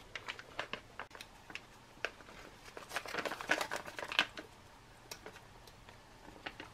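Retort pouch crinkling and rustling in short scattered crackles as it is handled and squeezed to push out a block of pork chow mein, busiest about three to four seconds in.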